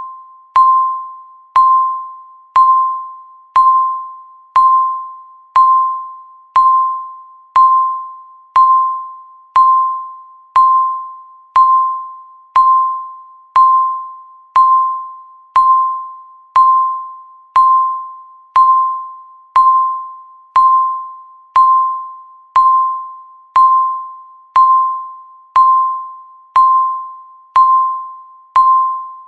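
Countdown timer beep sounding once every second, ticking off the seconds: a single clear electronic tone that starts sharply and fades away before the next one, evenly spaced.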